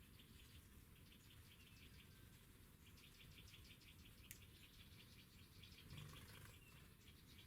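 Faint, rapid chirping: short high notes about ten a second, in runs of a second or two, with a single sharp click about four seconds in and a soft low thud near the end.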